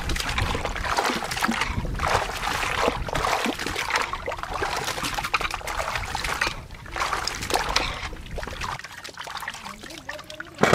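Water splashing and trickling in irregular surges, with a low rumble underneath that stops near the end.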